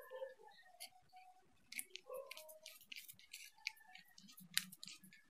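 Light, irregular clicks and ticks of a small screwdriver turning a screw into a dome CCTV camera's circuit board, along with the small plastic and metal parts being handled.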